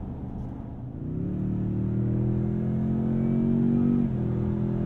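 2022 Toyota Tundra 1794's twin-turbo V6 hybrid powertrain under hard acceleration, heard from inside the cabin. The engine note jumps up sharply about a second in as the throttle goes down, then climbs steadily. It dips briefly about four seconds in as the automatic transmission upshifts.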